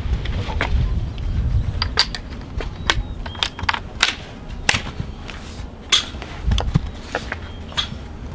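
Irregular sharp metallic clicks and clacks from the breech of a Springfield Model 1873 trapdoor rifle as it is handled and its action worked by hand.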